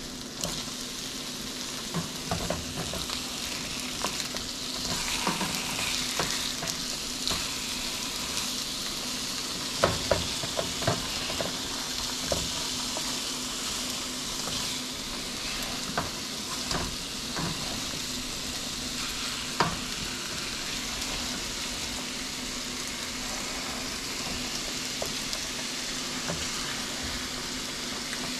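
Fish fillets sizzling in hot oil in a frying pan, a steady hiss, with a plastic spatula now and then clicking and scraping against the pans as the pieces are flipped skin side up.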